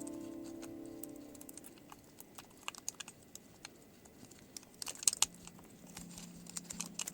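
Scattered light clicks and ticks of small plastic and metal laptop parts being handled, loudest around five seconds in, as a held background music chord fades out.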